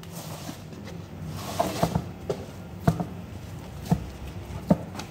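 Truck tyre and rubber inner tube being handled and shifted on paving: a scatter of about six short knocks and thumps with some rubbery rustling, over a steady low hum.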